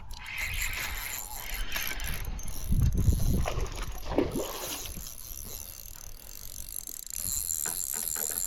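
Fishing reel drag clicking as a hooked bass takes line, growing stronger near the end.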